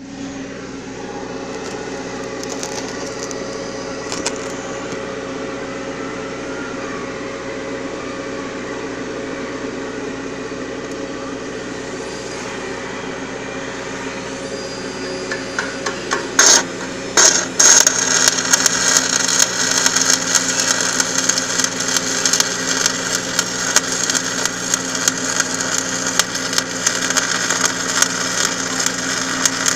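A welding machine humming steadily; about sixteen seconds in the electrode strikes the arc with two sharp pops, and then the arc burns with a continuous loud crackle.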